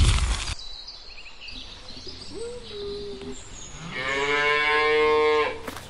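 Cow mooing: a short, quieter call about two seconds in, then one long, loud moo near the end. A rough rustling noise cuts off about half a second in.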